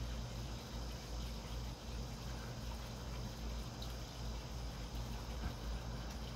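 Steady low background hum with faint, continuous insect chirping high above it.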